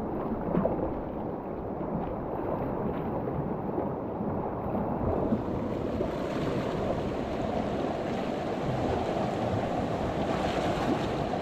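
Ocean surf washing along a rocky shore, with wind buffeting the microphone: a steady rushing that grows brighter and hissier about halfway through.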